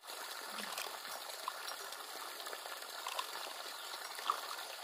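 Steady rushing of running water, with a few faint clicks.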